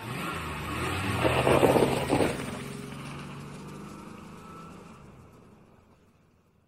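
A car driving away. Engine and road noise swell to their loudest about two seconds in, then fade steadily as it pulls off into the distance, dying out near the end.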